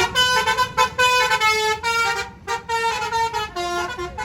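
Bus telolet horn playing a quick tune of short stepped notes, with a brief break a little over two seconds in, over the low rumble of traffic.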